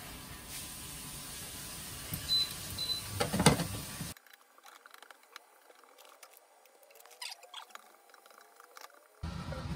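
Julienned carrots frying in a nonstick pan, a steady rushing hiss, with a plastic spatula knocking against the pan several times between about two and three and a half seconds in. About four seconds in the sound drops abruptly to faint scrapes and clicks of the spatula stirring the carrots, and the steady hiss comes back near the end.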